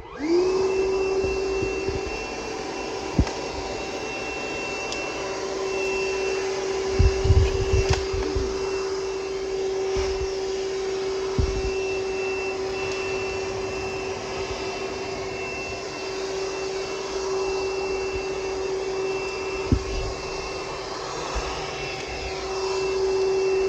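Milwaukee M18 18-volt cordless wet/dry vacuum switched on: the battery-powered motor spins up within a split second and then runs steadily with a high whine. There are a few knocks as it works, the loudest cluster about seven seconds in.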